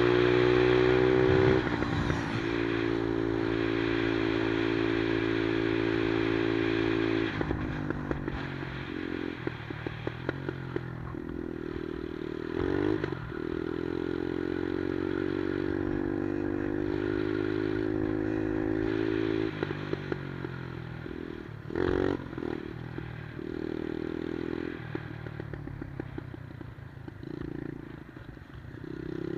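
110cc Monkey-style minibike's single-cylinder four-stroke engine under way, held at steady revs for long stretches, then backed off several times with a rattling clatter on the overrun before picking up again in shorter bursts near the end.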